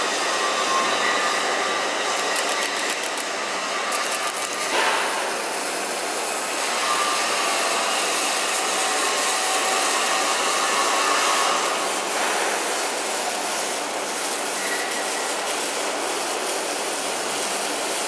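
Arc welding on a steel beam fitting, a steady noisy sizzle, over continuous steel-shop machinery noise with faint steady whining tones.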